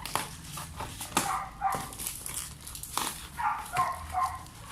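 Short high cries from a young pet, several in quick succession, among sharp crackles and rustles of plastic packaging being unwrapped.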